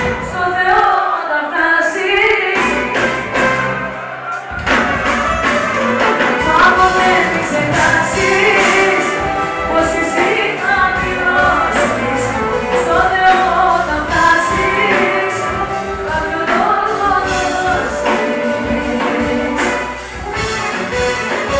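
A woman singing a Greek pop song live with a band of violin and keyboard, heard from the audience. About four and a half seconds in, the full band's bass and beat come in under the voice.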